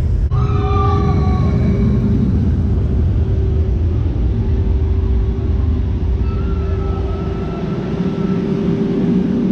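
B&M wing roller coaster train running along its steel track: a loud, steady rumble with a held whine over it and a few short falling tones near the start.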